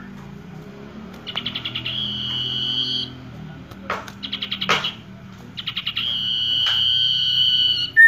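A common iora (sirtu) singing. Quick runs of rapid high notes lead into a long, steady whistle, twice, with a shorter run of notes between them. A couple of sharp clicks fall around the middle.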